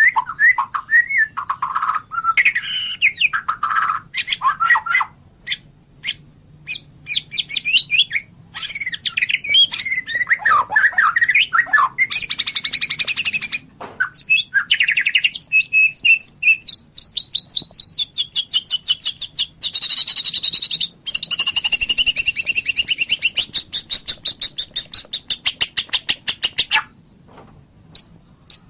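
White-rumped shama singing a long, varied song of loud whistled phrases and chirps, turning into fast, rapid trills in the second half; the song stops shortly before the end.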